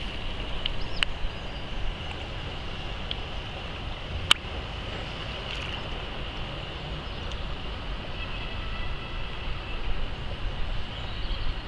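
Steady outdoor background noise with a low rumble and a single sharp click about four seconds in.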